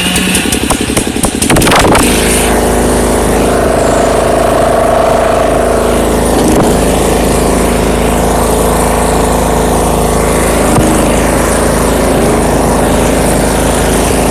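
Riding lawn mower engine starting: sputtering unevenly for about two seconds, then catching and running loudly and steadily.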